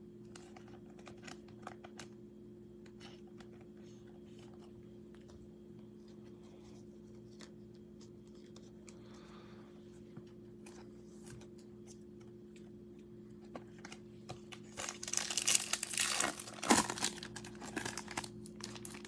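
Soft clicks and plastic rustles as a trading card is slid into a penny sleeve and a rigid plastic toploader, then, for the last few seconds, loud crinkling and tearing as a foil trading-card pack is ripped open. A steady low hum runs underneath.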